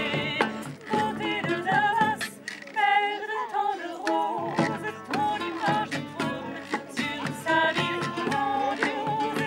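Music: women's voices singing a wavering melody over a steady beat of hand drums.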